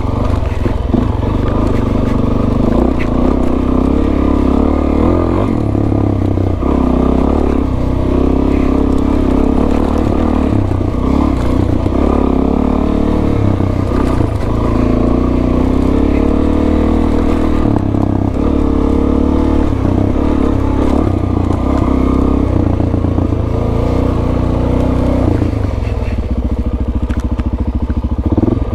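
Suzuki DR-Z400S single-cylinder four-stroke engine running under load while the motorcycle is ridden up a rough dirt trail, its note rising and falling with the throttle.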